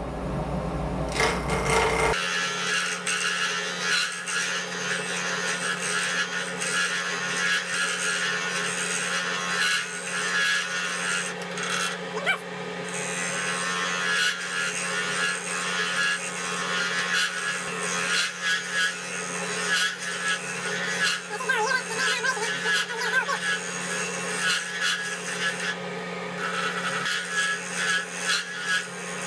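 Wood lathe turning a wooden blank at about 1800 RPM while a carbide-tipped turning tool takes small scraping cuts, rough-rounding the blank. Uneven scraping of the cutter on the wood over a steady hum.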